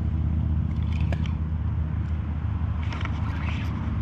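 A steady low droning hum, like a motor running.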